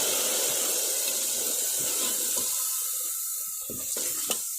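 Hot spiced onion-tomato masala in oil sizzling and hissing as a little water is added to the pan, the hiss slowly dying down as it settles. A couple of spoon clicks against the pot come near the end.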